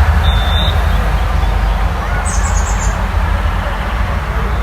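Ambience of a distant children's soccer game: faint children's voices over a steady low rumble, with a short high tone near the start and a quick bird-like chirp about two seconds in.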